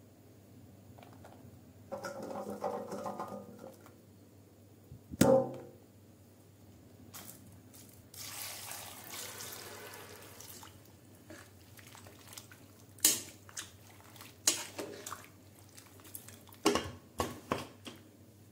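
Water poured from a vessel into a pressure cooker for a couple of seconds, about eight seconds in. Near the end comes a run of sharp metal clanks as the cooker's lid is put on. There is also a single sharp knock about five seconds in.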